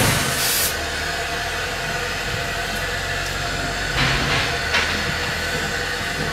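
Railway platform sound beside a standing steam train: a loud hiss that cuts off abruptly under a second in, then a steady low rumble, with two short scuffs about four and five seconds in.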